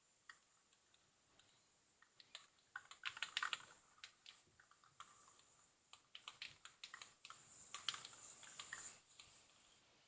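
Faint clicking and handling noise from an aerosol can of clear sealer, with a couple of short spray hisses about three seconds in and again near the end.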